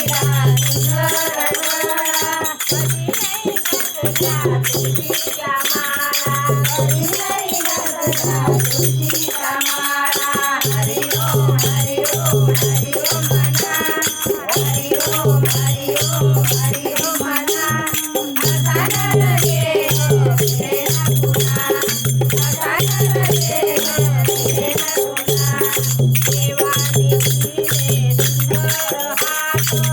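Women singing a devotional bhajan together, with rattling hand percussion keeping the beat and a low note pulsing on and off beneath the voices.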